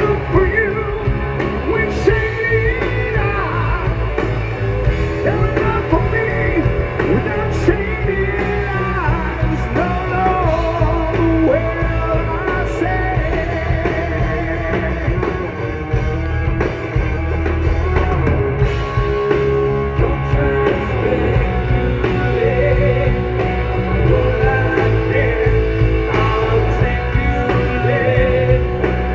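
Live rock band playing a power ballad, with electric guitars and drums, heard from the audience at an outdoor concert.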